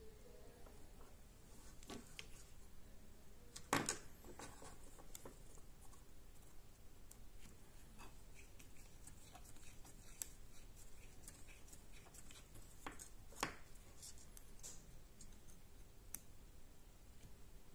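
Faint clicks and taps from a small plastic micro servo and circuit board being handled. The sharpest clicks come about four seconds in and again about thirteen seconds in, with a few lighter ticks between, over a low steady room hum.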